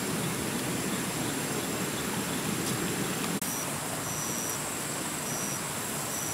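Forest ambience: a steady hiss with a faint, high, constant insect drone. After a cut about three and a half seconds in, an insect chirps in short high pulses, roughly once a second.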